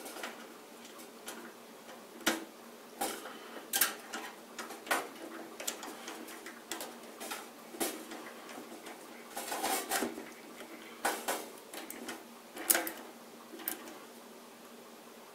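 Irregular clicks and light metallic clatter of small hardware and tools being handled around a computer case, with a few sharper knocks.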